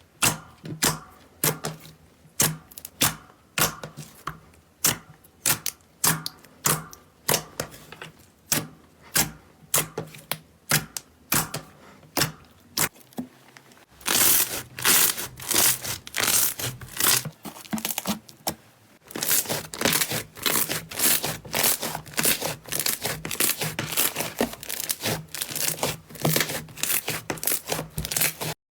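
Slime being squeezed and worked by hand, making sharp crackling clicks: about two a second at first, then a denser run of crackling from about halfway.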